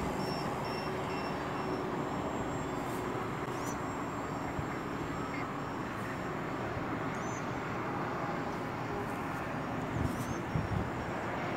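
Wind rushing over the microphone, with the faint steady drone of a distant electric-powered foam RC model airplane (Sbach 342 replica on a 3S lipo) in flight. A few gusts thump the microphone about ten seconds in.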